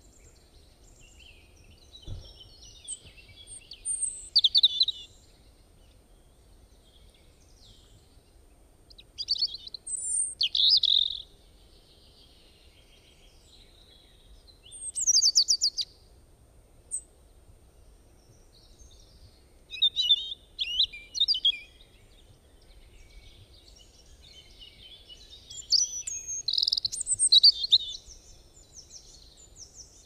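Songbirds singing in short phrases of high chirps and trills every few seconds, one a fast run of notes falling in pitch, over a faint low background noise.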